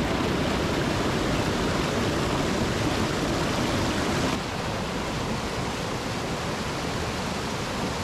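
Mountain stream rushing over smooth rock slabs, a steady hiss of whitewater; about four seconds in it drops a little in level and loses some brightness.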